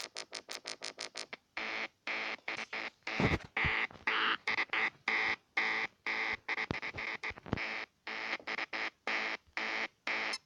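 Electronic synth music from a Music Maker Jam loop, playing as rapid, choppy staccato notes that cut off sharply between each one.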